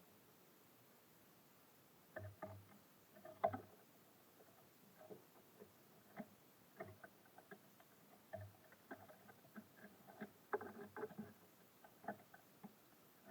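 Small birds at a wooden feeder: irregular light taps, pecks and scratching at the seed, with a few soft thumps of birds landing, starting about two seconds in and busiest near the start and again later on.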